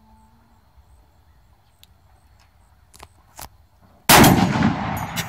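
A .50 BMG rifle fires a single very loud shot about four seconds in. The blast is followed by a long echo dying away, with a few faint clicks just before the shot.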